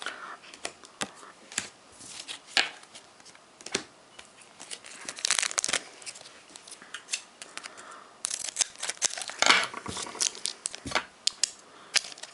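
Foil Pokémon booster pack wrapper being torn open and crinkled: a string of short rips, crackles and clicks, thickest about five seconds in and again from about eight seconds on.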